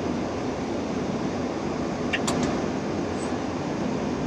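Steady rushing hum of a Boeing 787 flight deck on the ground before engine start, ventilation and equipment noise, with a couple of faint clicks about two seconds in.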